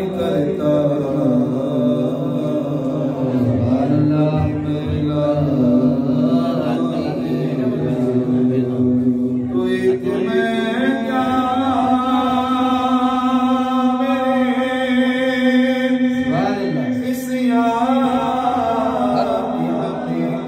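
A man sings a naat (Islamic devotional song) unaccompanied into a microphone, in long drawn-out melodic phrases. A steady held tone runs underneath the voice.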